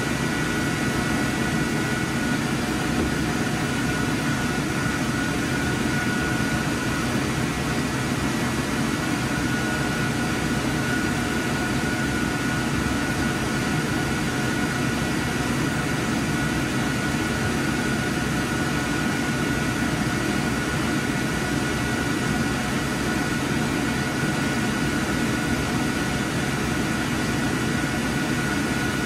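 Steady whir of projection booth fans and ventilation, a constant airy hum with a few faint high steady tones, and no rhythm or clatter.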